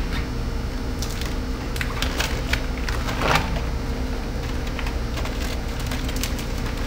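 Paper release liner being peeled off the back of perforated vinyl window film: irregular crackling and ticking, with a slightly longer rustle about three seconds in. A steady low hum underneath.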